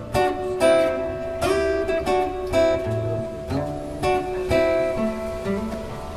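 Steel-string acoustic guitar strummed, chords of a blues song ringing out with a strike every half second to a second.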